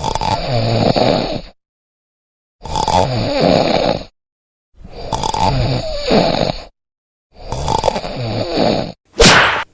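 A person snoring loudly, four long snores each separated by dead silence, then a short, sharp burst just after nine seconds that is the loudest sound of all.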